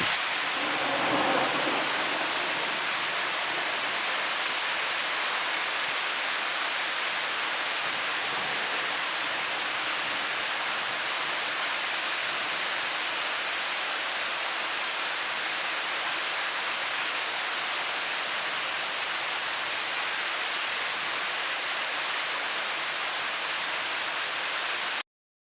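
Heavy rain pouring down in a steady, even hiss, cutting off suddenly near the end.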